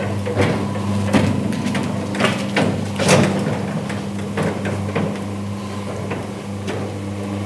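Electric drive of a large sectional garage door running as the door closes: a steady low motor hum, with frequent clicks and knocks as the panels run down their tracks.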